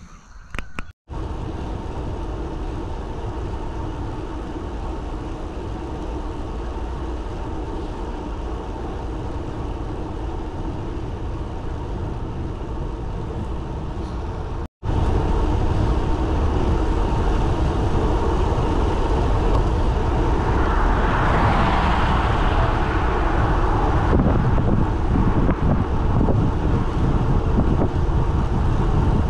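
Steady rush of wind on the microphone and tyre-on-asphalt road noise from a road bicycle riding along, heaviest in the low end. The sound breaks off for an instant twice and is louder after the second break, and a brighter rushing swell rises and fades about three-quarters of the way through.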